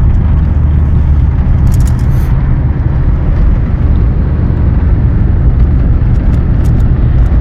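Steady low rumble of a car driving along at road speed, engine and road noise heard from inside the cabin. A few light clicks about two seconds in.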